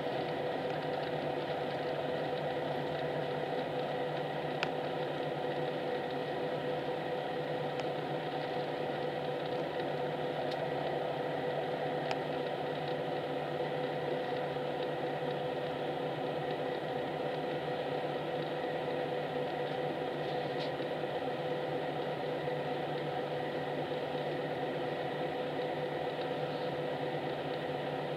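Steady engine and cabin noise inside a highway coach moving slowly through city traffic, with a steady hum and a few faint clicks.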